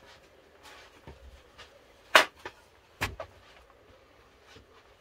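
Two sharp knocks about a second apart, each followed quickly by a lighter click.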